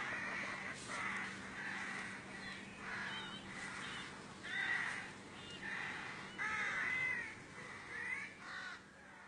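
A string of harsh, caw-like animal calls, each rising and falling in pitch, about one a second, getting fainter near the end. The uploader takes the caller for a wild cat (kucing hutan) and calls the sound strange.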